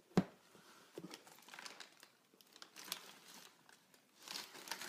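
Shoe packaging crinkling and rustling as shoes are handled and unpacked from their box. A single sharp tap comes just after the start, and the crinkling grows busier near the end.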